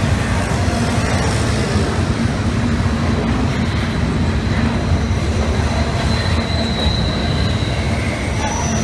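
Double-stack intermodal freight train's well cars rolling past at speed: a steady, loud rumble of steel wheels on the rails. A faint high wheel squeal comes in at about three and a half seconds and fades out before the end.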